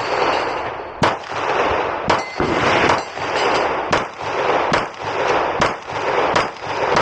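9mm Glock pistol with a Radian Ramjet compensator firing 124-grain rounds at a steady pace of about one shot a second, each shot echoing. The gun is cycling every round without a malfunction.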